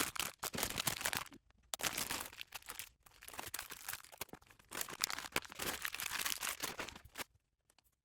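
Crinkling and rustling of things being handled, in irregular bursts with small clicks, stopping near the end.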